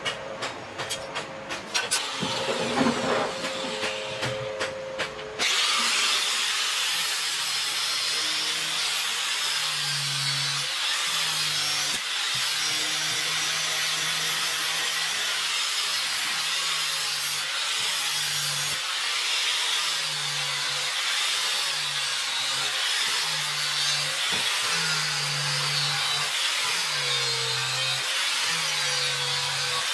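Handheld angle grinder with an abrasive disc grinding a spring-steel knife blade, a loud steady grinding with a low motor note that wavers as pressure on the disc changes. It cuts in abruptly after about five seconds of sharp clicks and crackling from the hot blade steaming on a water trough.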